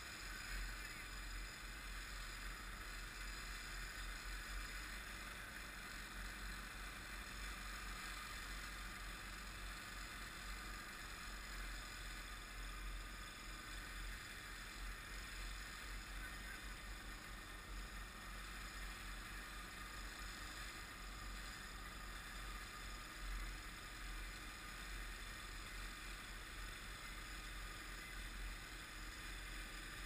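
Faint, steady running of a gasoline snow blower's engine as it clears deep snow.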